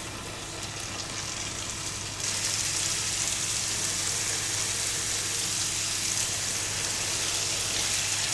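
Pieces of semolina dough deep-frying in hot oil in a frying pan, a steady sizzle. The sizzle steps up louder about two seconds in and stays there.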